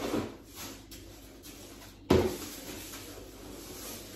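Plastic litter scoop stirring cat litter in a plastic litter box, a gritty scraping and rustling, with one sharp knock about two seconds in.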